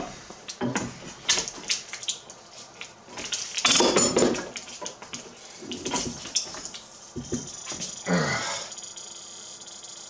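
Metal knocks and clanks of hot knife blades being handled and pressed between metal quench plates in an arbor press, with a louder rushing noise about four seconds in and a short creak a little past eight seconds.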